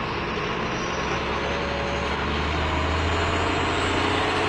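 Engine of a heavy farm machine running steadily at an olive harvest, a deep low drone under a broad rushing noise that grows slightly louder.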